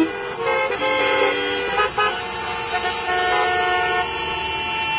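Many car horns honking at once in traffic, overlapping at different pitches: some short toots, others held for a second or more.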